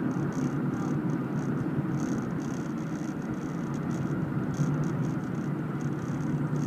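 Steady road and engine noise of a car driving on asphalt, heard from inside the moving car as an even low rumble. A faint high pulsing hiss comes and goes above it.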